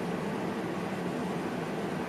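Steady running noise inside the cab of a VIRM double-deck electric train: wheels on rail and cab ventilation, with a thin steady high whine over it.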